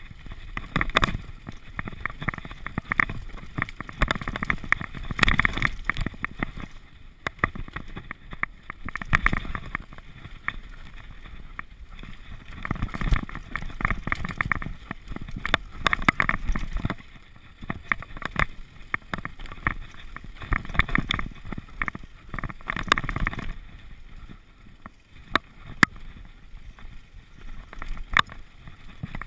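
Mountain bike riding down a dirt forest trail: tyres rolling over dirt and roots while the bike's chain and frame rattle and clack over bumps, in many sharp knocks with loudness surging and easing as the trail changes.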